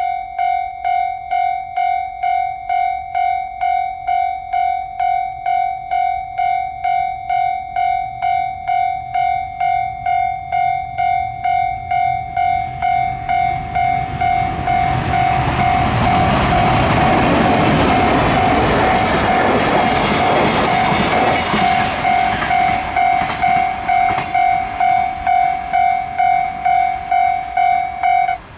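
Level-crossing warning bell ringing in an even clang nearly twice a second while a train passes over the crossing. The train's running noise swells from about halfway, is loudest for several seconds, then fades. The bell stops abruptly just before the end.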